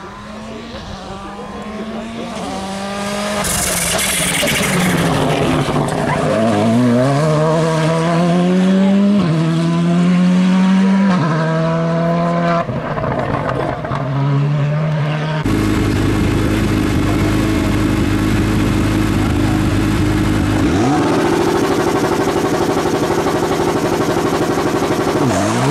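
Rally car engine revving hard through the gears, its pitch climbing and dropping back at each of several upshifts. About halfway through the sound changes abruptly to a steady engine note over a heavy low rumble, and the engine note rises again near the end.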